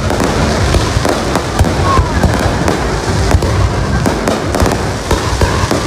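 A fireworks display in full swing: a rapid, continuous barrage of bangs and crackles, many shells bursting every second over a deep rumble.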